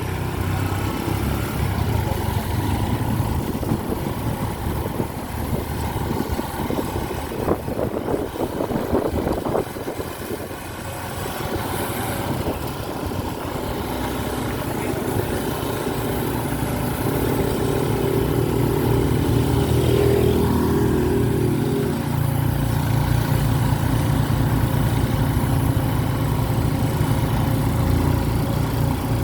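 A vehicle engine running on the move, easing off about ten seconds in and then picking up and growing louder again.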